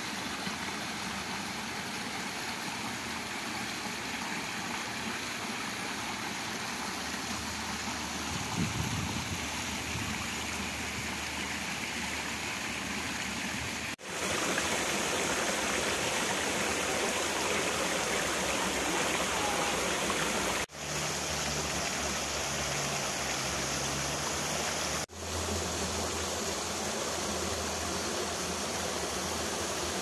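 Rocky stream rushing and splashing over small cascades, a steady wash of water. It cuts out sharply three times and resumes at a slightly different level as one shot of the water gives way to the next.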